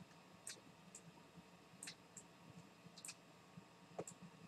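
Near silence broken by a few faint, irregular clicks: a stylus tapping on a drawing tablet as a fraction is written out.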